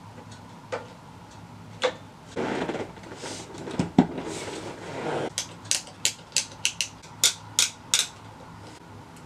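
Handling noise from swapping electric guitars: isolated clicks, then a couple of seconds of rustling with a sharp thump about four seconds in, followed by a quick run of about ten sharp clicks and pops as a guitar cable jack is worked into a black seven-string guitar.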